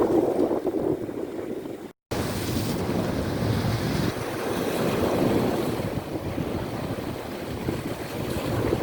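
Sea waves washing ashore, with wind buffeting the microphone. The sound drops out for a moment about two seconds in, then carries on steadily.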